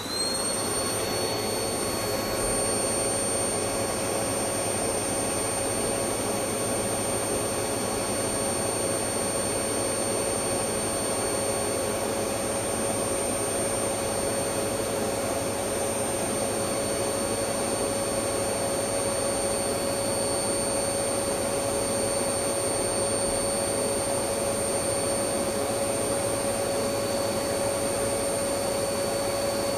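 Electric vacuum cleaner motor coming up to speed in the first half second, then running steadily with a continuous whine over a rushing airflow noise.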